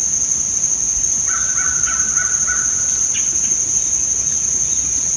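Crow cawing in the distance from about one to three seconds in, over a loud, steady, high-pitched whine in the outdoor background.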